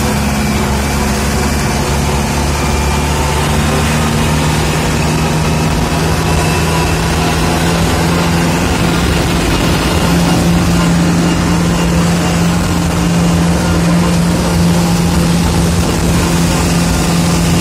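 Kubota tractor's diesel engine running steadily at high revs, near full throttle, while the tractor drives along, heard from the driver's seat. It gets slightly louder about halfway through.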